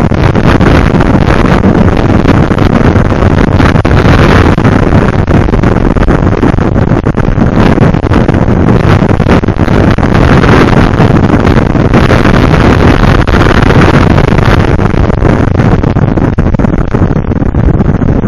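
Motorcycle riding at speed, with loud, steady wind rush over the microphone and the engine running beneath it.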